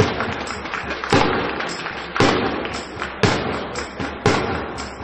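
A steady beat of loud thumps, about one a second, each ringing out in the hall: supporters beating a drum between points.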